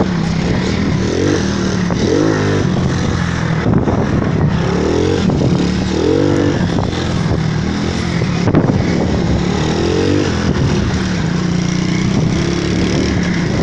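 Shineray motorcycle's engine running while riding, its pitch rising and falling as it is revved up and eased off several times.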